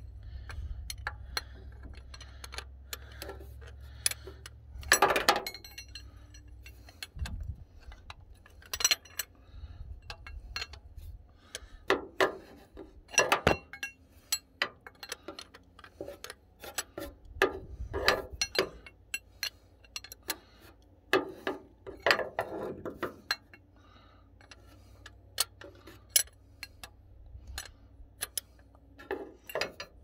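Wrench clicking and clinking on a starter's top mounting bolt as it is tightened a little at a time: irregular sharp metallic ticks and taps, with a few louder knocks.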